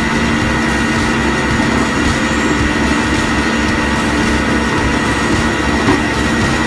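Rollback tow truck's engine and hydraulics running steadily while the winch draws a Volkswagen GTI up the bed: a steady high whine over a low engine drone.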